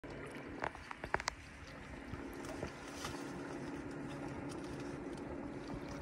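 Small waves lapping against the rocky edge of a lake, a steady wash of water with a few sharp ticks about a second in and a faint steady hum underneath.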